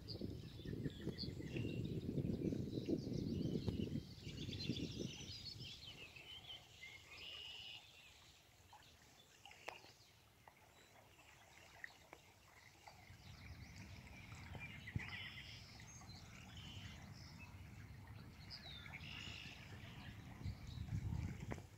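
Birds chirping and calling on and off, over a low rumbling noise that is strongest in the first four seconds and builds again near the end.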